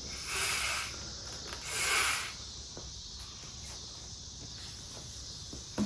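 Two long breaths blown into the valve of an inflatable prop, heard as two breathy hisses about a second and a half apart.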